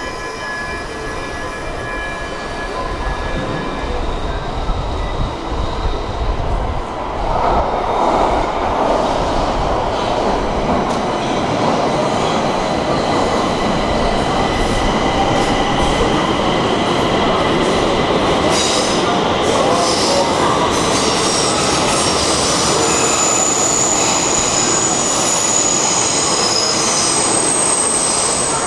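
Stockholm metro (tunnelbana) train running through the station. A steady rail noise swells about seven seconds in and holds, and high-pitched wheel squeal rises over it in the last few seconds.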